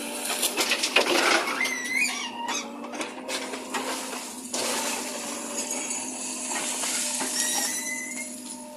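JCB 3DX backhoe loader at work: its engine runs with a steady hum while the bucket scrapes and crunches through soil, with irregular knocks and clatter and a couple of brief squeaks.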